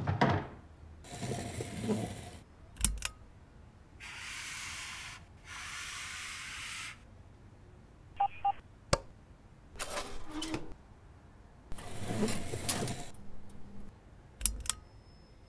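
A run of separate small mechanical sounds as a folding wooden LED task lamp unfolds and folds: sharp clicks, scraping and rustling movements, and two long hisses, with quiet gaps between them.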